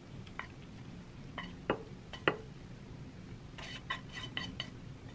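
Chopsticks, a frying pan and a ceramic baking dish clinking and knocking together as food is pushed out of the pan: two sharper knocks around two seconds in, then a quick run of lighter, ringing clinks near the end.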